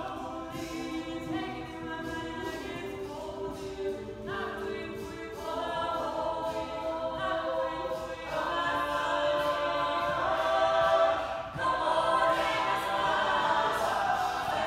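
Mixed-voice a cappella group singing sustained chords in close harmony, with no instruments. It swells louder about eight seconds in.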